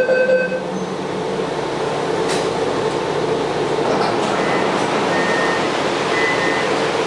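Taipei Metro Wenhu line Bombardier rubber-tyred train running at speed with a steady rushing rumble. A steady electronic tone stops about half a second in, and a few faint short high squeaks come in the second half. The uploader says this train makes abnormal noises while running.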